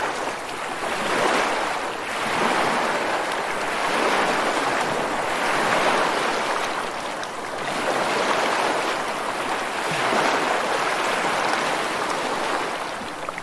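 Ocean surf: an even rushing of waves that swells and eases every two seconds or so.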